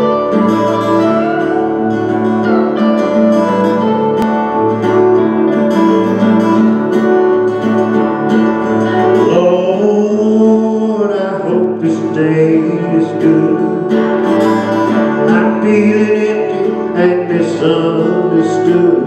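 A live band plays a song's instrumental intro on acoustic guitar, electric guitar and electric bass, with the bass repeating low notes at an even pace.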